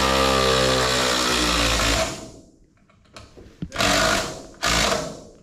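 Cordless power drill driving a fastener into a wooden rim joist: one long run of about two and a half seconds, its pitch sagging slightly under load, then two short bursts to seat it.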